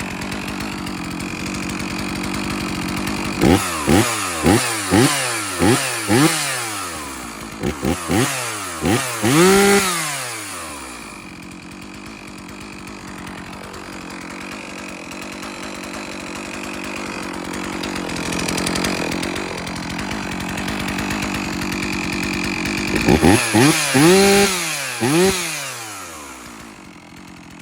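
Rebuilt Stihl MS 460 Magnum two-stroke chainsaw running after a warm start. It idles and is blipped through a quick series of short throttle revs, each falling straight back, then settles to steadier running before a second burst of revs. The owner judges the engine to be running a little rich.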